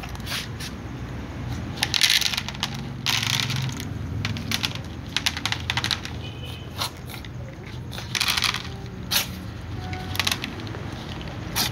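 Cats crunching dry kibble, with pellets clattering on a plastic feeding tray, in irregular crackly bursts that are loudest about two, three and eight seconds in.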